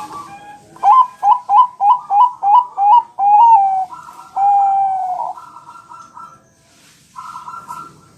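Zebra dove (Bangkok-type perkutut) cooing: a run of about eight short, clipped coos at roughly three a second, then two longer drawn-out coos, followed by softer, quieter cooing near the end.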